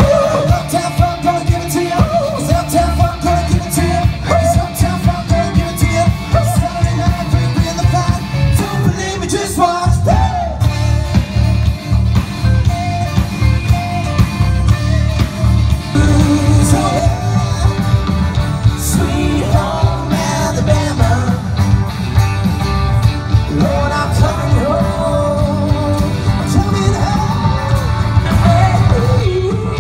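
A live rock band playing: a singer over electric guitars, bass and drums with a steady beat.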